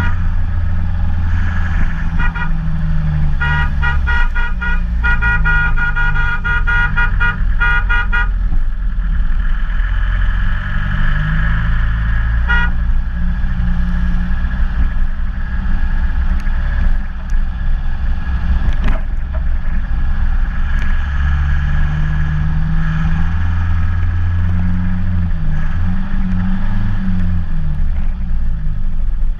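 Car engine running steadily as the vehicle drives, its pitch shifting as the revs change. Over the first eight seconds a car horn sounds in a string of short toots, with one more toot about twelve seconds in.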